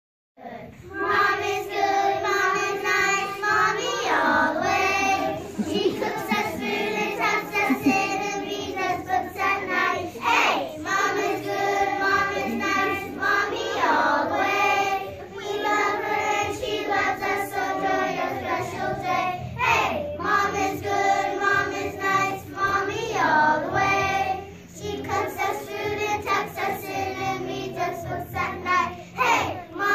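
A class of young children singing a song together as a group.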